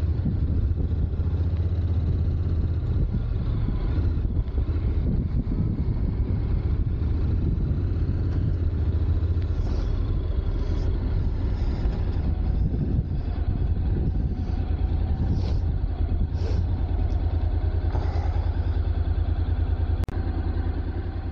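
Honda NC750X DCT's parallel-twin engine running steadily while the motorcycle rides at town speed, with a low rumble of wind and road noise under it.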